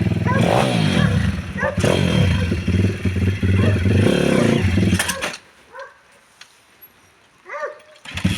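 Pit bike's single-cylinder engine running steadily, then cutting out about five seconds in. A few short high animal yelps sound over it and in the quiet that follows.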